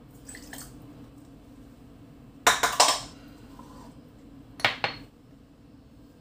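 Kitchenware being handled: a cluster of sharp clinks and clatters about two and a half seconds in and another about two seconds later, over a faint steady hum. A brief faint trickle of water poured into a stainless saucepan comes just at the start.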